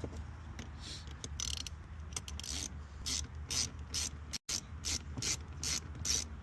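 Ratcheting screwdriver clicking in quick repeated runs, about three clicks a second, as a fastener is tightened down.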